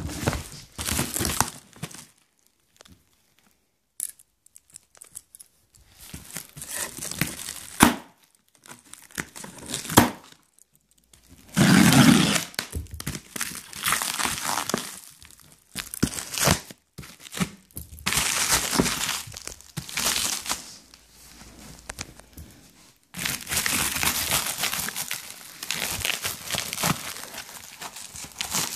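Plastic packaging on a parcel crinkling and tearing as it is unwrapped by hand, in irregular bursts with a few short silent pauses.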